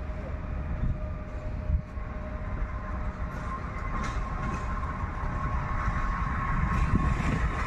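Modernised SM42 (6Dg) diesel shunting locomotive running as it approaches, a low engine rumble with a steady high whine, growing louder toward the end.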